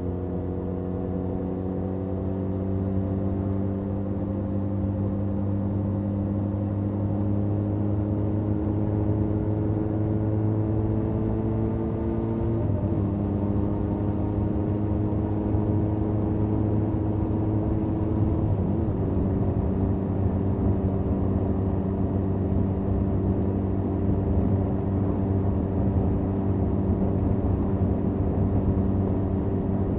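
Benelli 502C's 500 cc parallel-twin engine through its stock exhaust, heard from the rider's seat as the bike pulls along. The engine note climbs slowly, drops briefly at two upshifts about twelve and nineteen seconds in, then holds a steady cruise, with road and wind noise underneath.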